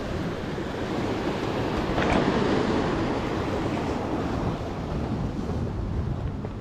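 Surf washing against a rock wall, with wind on the microphone; the wash grows louder about two seconds in.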